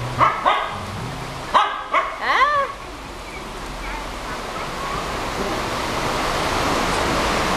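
Small dogs giving short, high yapping barks in rough play, about six quick yaps in the first two and a half seconds. After that a steady hiss with no barking grows slowly louder.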